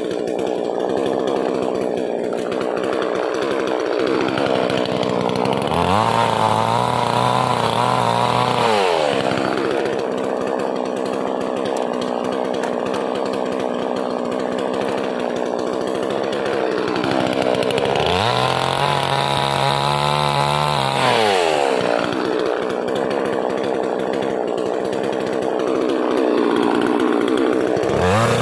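Two-stroke chainsaw cutting through tree wood: the engine runs steadily under load in the cut, and twice it rises in pitch to full revs, holds for about three seconds, and drops back as the cut resumes.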